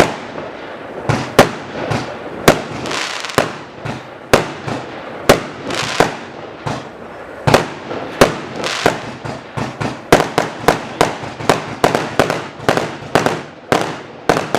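200-shot consumer firework cake (SRPYRO Tornado) firing a continuous barrage of sharp shot reports. They come about one a second at first and speed up to two or three a second in the second half.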